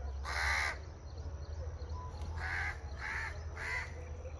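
A crow cawing four times: one longer caw about half a second in, then three shorter caws in quick succession in the second half, over a low steady hum.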